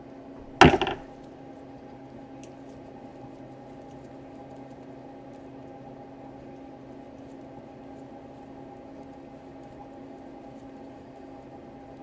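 A single sharp clatter about half a second in, a quick cluster of hard knocks that dies within half a second, over a steady low hum of room tone.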